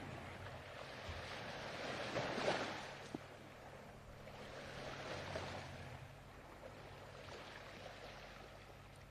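Soft ocean surf: waves washing in and drawing back, swelling and fading every few seconds, with a small click about three seconds in.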